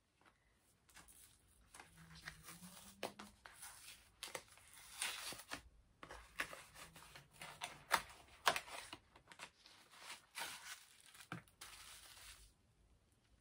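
A paper envelope being torn open by hand, then paper being crinkled and rustled as the wrapped contents come out, in a run of short, uneven bursts.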